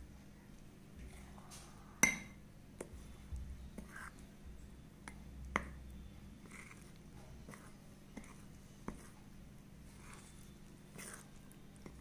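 A mixing utensil clinking and scraping against a bowl as pancake batter is stirred: scattered faint clicks, the loudest about two seconds in, over a low steady hum.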